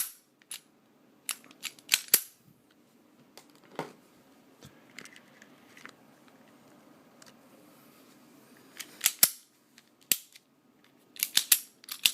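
Sharp metallic clicks and snaps of a reassembled Ruger LCP pistol being handled, coming in short clusters of a few clicks with gaps of several seconds between them.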